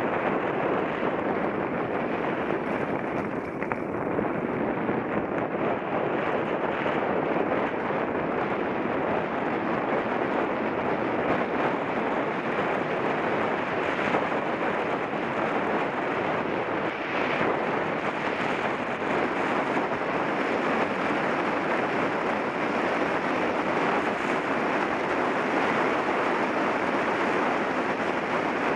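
Steady rushing wind noise on the microphone of a mountain bike being ridden along a trail.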